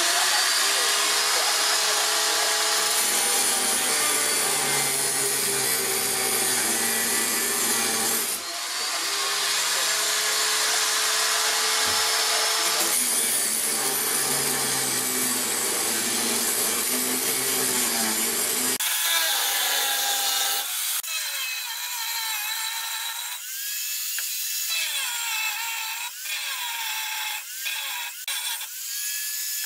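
Angle grinder with a thin cut-off disc cutting through a hardened steel circular saw blade: a steady grinding hiss with the motor's whine dipping and rising as the disc is pressed into the steel.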